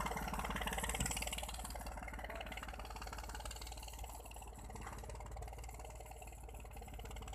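Tractor engine running steadily under load, growing gradually fainter as it moves away.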